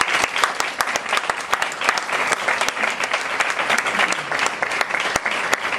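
Audience applauding: many people clapping.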